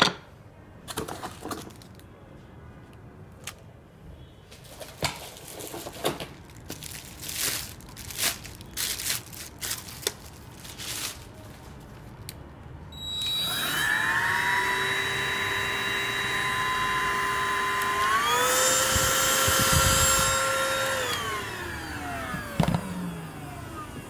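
Plastic parts clicking and plastic wrap rustling as the cordless vacuum is handled. About halfway through, the Total TVCH14111 cordless stick vacuum's motor starts with a rising whine and runs steadily. It steps up to a higher speed setting a few seconds later, then winds down with a falling whine once switched off.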